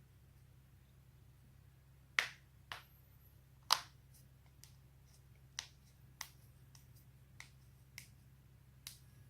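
Joints cracking: a string of short, sharp pops, about nine in all, irregularly spaced, the two loudest a little over two seconds and about three and a half seconds in.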